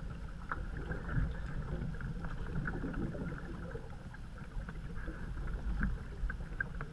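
A canoe being paddled on calm water: the paddle blade dips and pulls through the water, with drips and trickling along the hull, over a low steady rumble.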